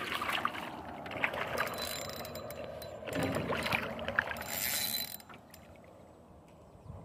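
Hooked northern pike thrashing and splashing at the water's surface, with scattered sharp clicks; the splashing comes in surges and stops about five seconds in.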